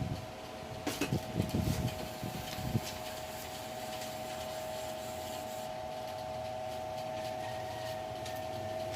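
Handling noise: rubbing and a few low bumps in the first three seconds, then light clicks, as the titanium muffler is turned over in the hands, over a steady high hum.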